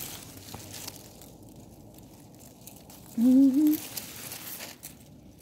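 Leaves of tomato plants rustling as a hand pushes in among them. About three seconds in, a short hummed "mm" from the picker rises slightly in pitch.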